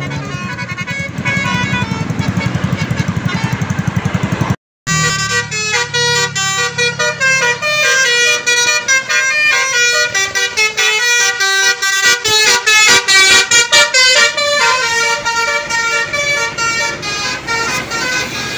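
Indonesian bus 'telolet' musical air horns playing rapid runs of notes that step up and down in pitch. The sound breaks off for a moment about four and a half seconds in, then resumes with a faster run of short, choppy horn notes.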